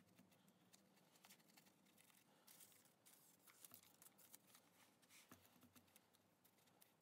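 Near silence, with faint irregular scratching of a paintbrush dabbing PVA glue onto wet newspaper strips on a papier-mâché head.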